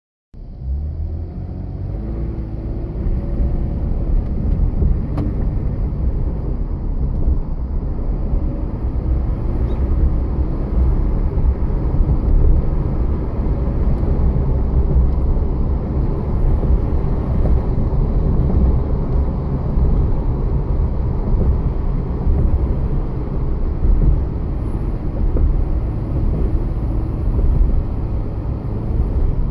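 2009 Jeep Wrangler JK running, a steady low rumble, with a faint high-pitched squeal coming and going over it. The squeal is the fault the owner is trying to track down.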